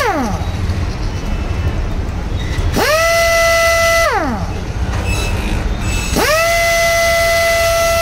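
Elephant IW02 half-inch pneumatic impact wrench free-spinning with no load, its air motor whining. It is triggered twice: each time the pitch rises quickly to a steady high whine, then winds down after release. The first run lasts about a second and a half. The second begins about six seconds in and is still running at the end.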